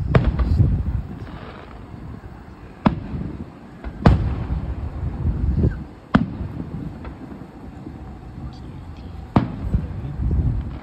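Aerial fireworks shells bursting: about six sharp bangs a second or more apart, several trailed by a low rumbling echo.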